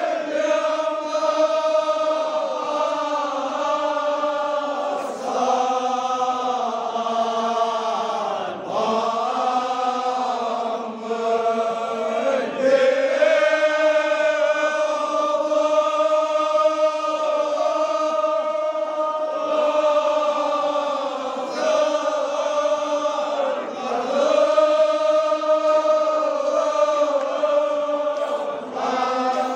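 A group of men's voices chanting a Kashmiri marsiya (Shia elegy) in the sareer style, together in long drawn-out lines. There are short breaks between phrases every few seconds.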